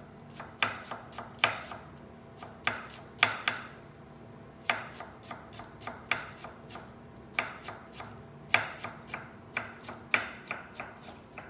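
Knife chopping fresh coriander on a cutting board: sharp taps in uneven runs of several strokes, with short pauses between runs.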